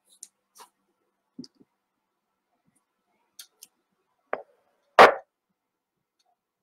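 A few faint, scattered clicks and taps, then a sharper click and one louder thump about five seconds in.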